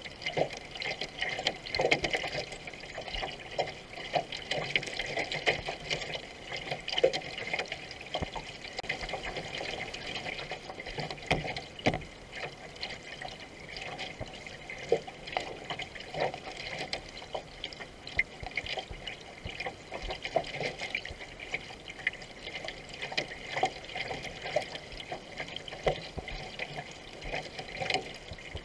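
Water gurgling and splashing along the hull of a paddled racing canoe moving at speed, with many small irregular splashes.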